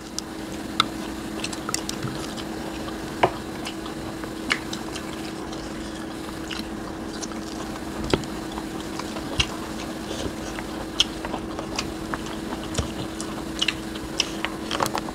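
Close-up mouth sounds of people eating rice, fish and vegetables by hand: chewing with many short, sharp wet clicks and smacks scattered throughout, over a steady low hum.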